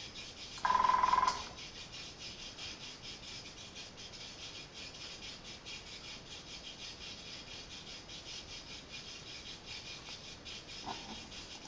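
Steady high hiss. About half a second in, a short, loud tone near 1 kHz with overtones lasts under a second, and a faint, shorter tone comes near the end.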